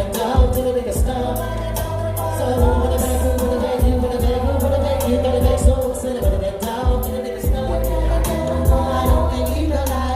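Hip-hop track played loud, with a heavy pulsing bass, steady hi-hat ticks and a drawn-out sung vocal melody over it.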